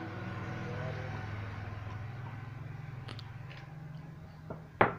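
A steady low mechanical hum, like a motor or engine running in the background, fading near the end. There is a faint click about three seconds in and a sharp click just before the end, as a metal screwdriver is handled against hard surfaces.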